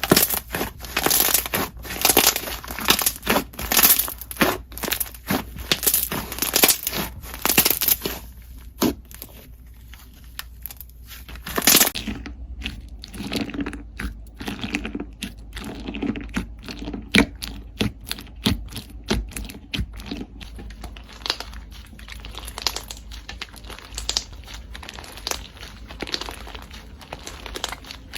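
Slime being played with by hand: dense crackling, crinkling clicks that thin out and turn quieter about a third of the way through.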